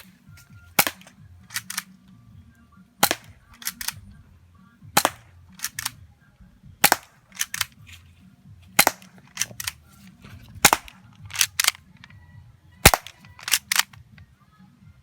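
1911 airsoft pistol firing single shots at a steady pace: about seven sharp cracks roughly two seconds apart, each followed by one or two fainter clicks.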